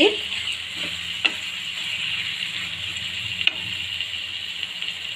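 Chicken pieces in tomato purée and spices sizzling steadily in a frying pan as a spatula stirs them, with two light clicks of the spatula against the pan, about a second in and again past the middle.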